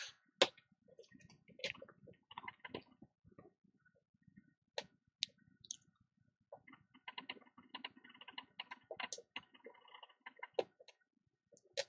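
Faint, scattered clicks and scratches of a fine blade scoring and scraping the top layer off an iPhone 6 logic board, busier in the second half.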